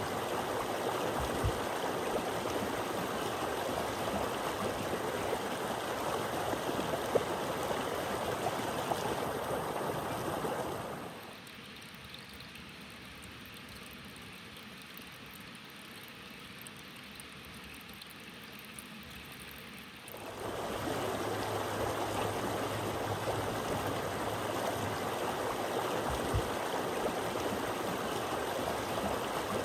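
Running water of a stream flowing steadily, with a noticeably quieter stretch in the middle before the fuller flow returns.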